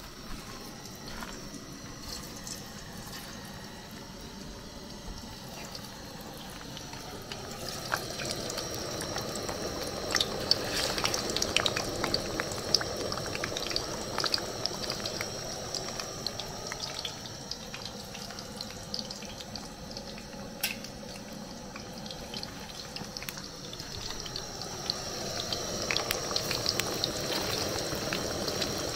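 Plantain slices frying in a pan of hot oil: a steady sizzle with many small crackles and pops. It grows louder about eight seconds in and again near the end.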